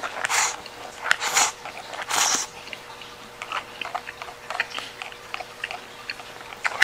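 A person slurping up peperoncino spaghetti from a bowl held to the mouth: three loud slurps in the first couple of seconds, then chewing and light clicks of a plastic fork against the plastic bowl.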